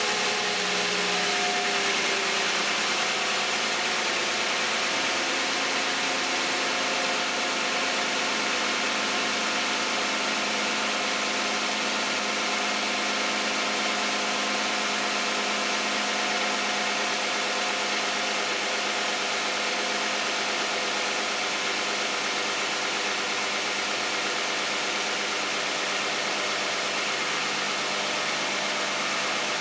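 Toyota 2GR-FE 3.5-litre V6 with 152,000 miles, in a 2010 Camry, idling steadily shortly after a cold start. Its tones ease down a little in the first few seconds, then hold level.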